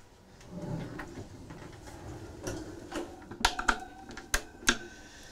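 Pull-out wire pantry basket in a wooden galley corner cabinet rolling back in on its runners, followed by several sharp clicks and knocks of cabinet doors and their latches being shut and opened.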